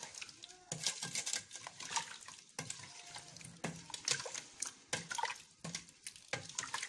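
Grapes in sugar syrup sloshing as they are stirred in a stainless-steel pot, with irregular splashy strokes and scrapes about once or twice a second. They are being stirred to dissolve the sugar.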